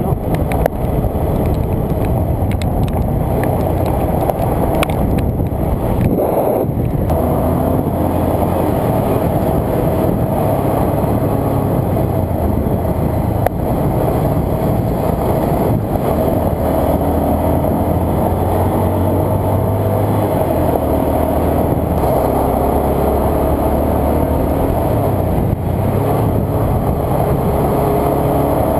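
Motorcycle engine running steadily while riding a gravel road, its note shifting a few times as the speed changes, with a brief break about six seconds in.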